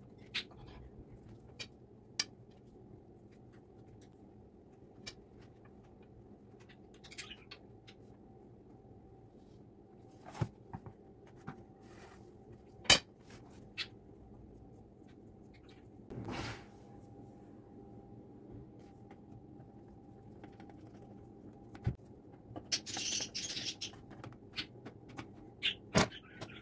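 Sparse kitchen handling sounds: occasional light clicks and clinks of utensils and dishes, with a few sharper knocks and a brief rustle near the end, over a faint steady hum.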